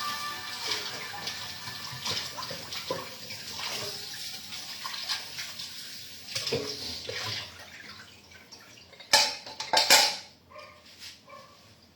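Tap water running into a sink during dishwashing, with scattered small clatters. It eases off after about seven seconds, then two loud knocks come about nine and ten seconds in.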